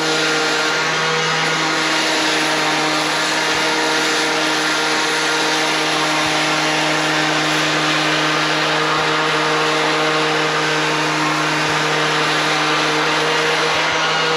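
Power sander with 100-grit sandpaper running steadily against a brake rotor's face: a constant motor hum under a rough sanding hiss. It is scuffing the old pad compound off the rotor surface before new pads go on.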